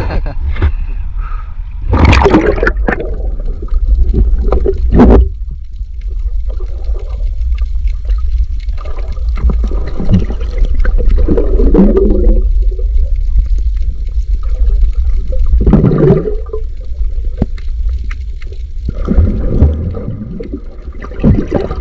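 Water heard through a camera held under water: a steady low rumble with gurgling surges of bubbles and moving water every few seconds.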